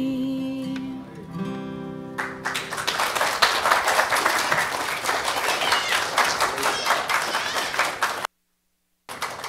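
An acoustic guitar's closing chord rings out at the end of a song for about two seconds. Then a congregation applauds for about six seconds, and the clapping cuts off abruptly near the end.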